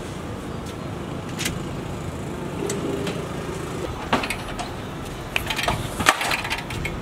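Clicks, knocks and rattles of a small motorcycle being wheeled out through a doorway by hand, most of them around the middle and toward the end, over a steady low hum.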